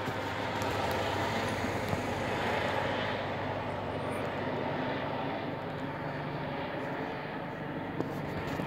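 Police helicopter flying overhead: a steady drone of rotor and engine, fading slightly in the second half.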